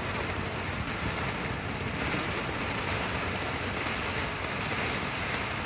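Ground fountain firework spraying sparks, a steady hiss.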